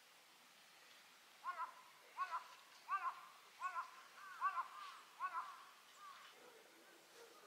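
A crow cawing, six harsh calls in a steady series about one every three-quarters of a second.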